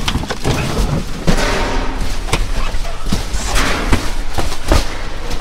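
Cardboard boxes and plastic bags being shoved and dropped about inside a dumpster: an irregular run of thuds and knocks, with rustling and scraping of cardboard and plastic between them.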